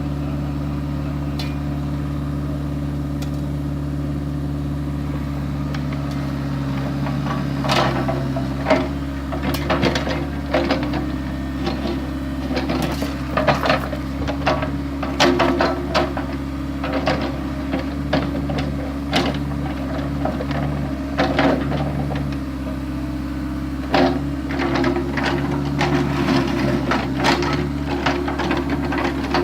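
Excavator's diesel engine running steadily. From about seven seconds in, irregular sharp clanks and scrapes join it, from the bucket digging in the trench.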